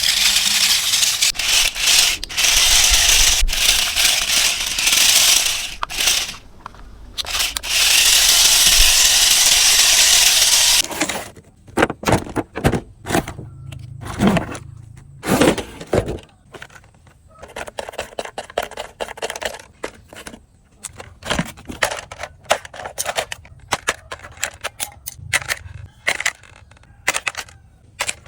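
Loud crackling and rustling of handled plastic packaging for about the first eleven seconds, then scattered clicks and rattles of small plastic parts being handled.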